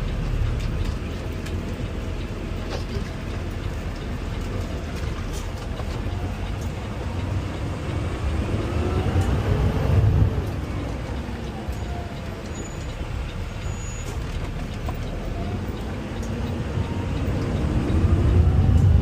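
Automated side-loader garbage truck running, its hydraulic arm whining up and down in pitch as it lifts and empties a cart. The engine grows louder near the end.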